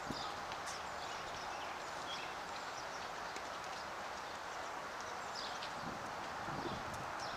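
Steady outdoor background noise, with a few faint, short high chirps and light clicks.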